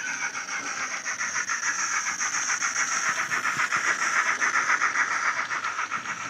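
DCC sound from a Sonic Models A5 (GCR 9N) model steam tank locomotive, played by a LokSound 5 decoder running the Wheeltappers sound file through a small tablet speaker. It gives an even, quick beat of steam chuffs over a steady hiss, growing louder as the locomotive comes past, loudest about four to five seconds in.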